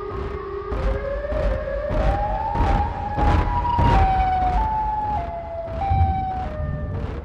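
Siren Head monster sound effect: a siren-like wail whose pitch climbs slowly for about three seconds, then drops in steps. Under it run a low rumble and regular thuds about twice a second.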